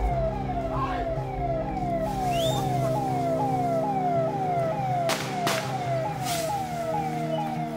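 Vehicle siren sounding a fast, repeating falling wail, about two cycles a second, over a steady engine hum, used to drive a wild elephant off the road. Two sharp bangs about five seconds in, half a second apart.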